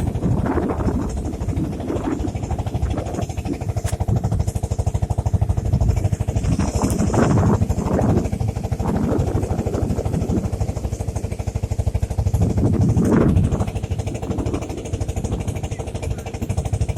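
Motorboat engine running steadily with a fast, even firing pulse, and a few brief louder rushes of noise over it.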